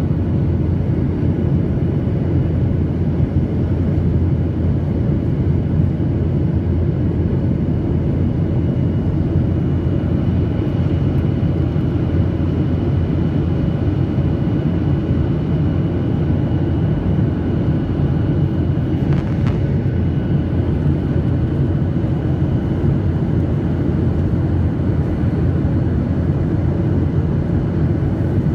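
Jet airliner cabin noise heard from a window seat over the wing in flight: a steady, dense low rumble of engines and airflow with a faint steady whine above it.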